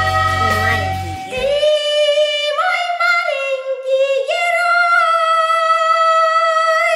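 Song with backing music that stops about a second and a half in. A woman then sings alone in a high voice, holding long notes with a few steps up and down in pitch.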